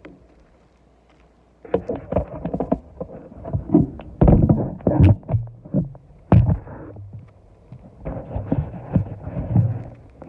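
Brittle asphalt roof shingles being worked loose by hand, an irregular run of crackling, scraping and rustling with a few sharp knocks. It starts about two seconds in.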